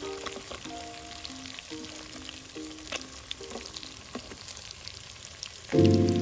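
Dried fish (tuyo) sizzling and crackling as they fry in hot oil in a pot. Background music of short notes plays over it and swells into a loud chord near the end.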